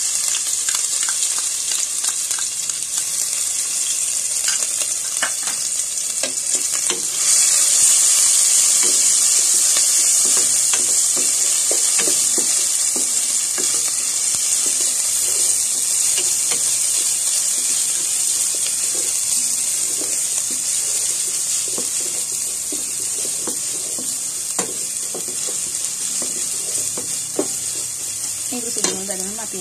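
Ground ginger-garlic paste sizzling in hot ghee in an enamel pot while being stirred with a wooden spatula: a steady high hiss with light scraping taps. The sizzle swells about seven seconds in, then gradually fades.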